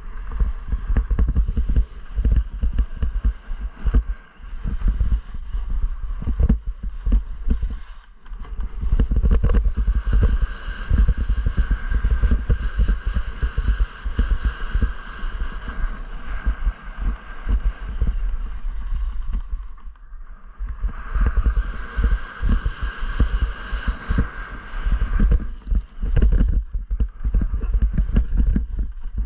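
Wind buffeting the microphone of a helmet-mounted camera on a fast ski descent: a loud, gusting low rumble, with the skis hissing and scraping over hard, tracked snow that swells twice, in the middle and later on.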